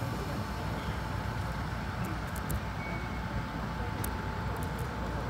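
Cabin noise inside an MTR East Rail Line mid-life refurbished electric train under way: a steady low rumble with a constant high hum, and a few faint ticks about two and four seconds in.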